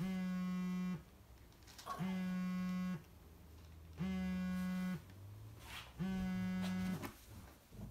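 An iPhone buzzing for an incoming call on a wooden table: four even one-second buzzes a second apart, all on one steady low pitch.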